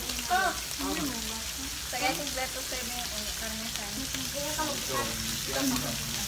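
Samgyupsal pork slices sizzling steadily on a round electric grill pan, with voices chatting over it now and then.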